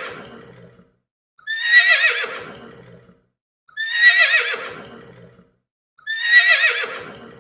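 Horse whinnying three times, the same neigh repeated about every two and a half seconds, each call wavering in pitch and fading out.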